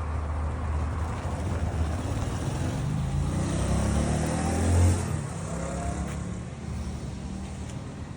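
A motor running with a steady low hum, its pitch rising and loudest about five seconds in, then easing off.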